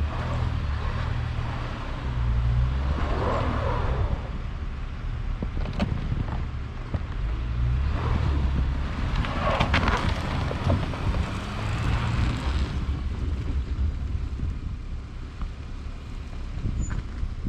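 A car's engine runs with a low rumble as the car is backed out through snow. Swells of rushing noise come about three seconds in and again about ten seconds in.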